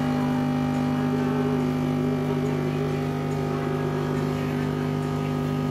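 Electric centrifugal juicer's motor running with a steady hum.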